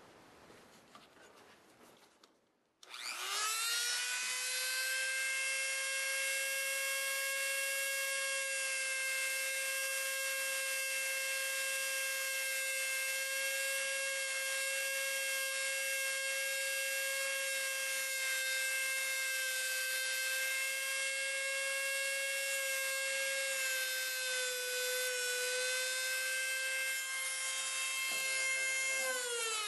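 Dremel rotary tool with a cutoff wheel spinning up about three seconds in and running at a steady high whine while it cuts through a steel inflator needle. The pitch sags briefly near the end, then falls as the tool winds down.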